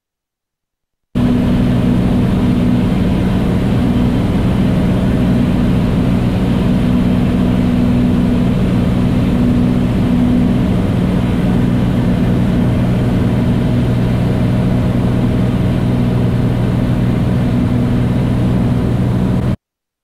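Beechcraft A36 Bonanza's six-cylinder piston engine and propeller droning steadily in level cruise-descent power, heard from inside the cockpit. It cuts in abruptly about a second in and stops just as abruptly near the end.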